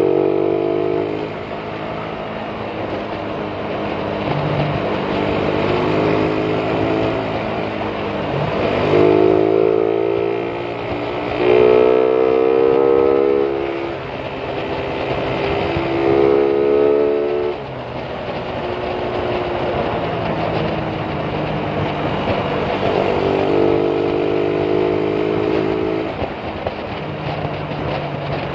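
Suzuki Raider 150's single-cylinder four-stroke engine, heard from the rider's seat, accelerating with rising pitch and then easing off, in several pulls a few seconds long, over steady wind noise.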